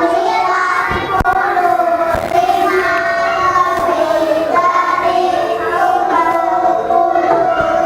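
A class of young children reading a sentence aloud together in unison. Their voices are drawn out into a sing-song chant.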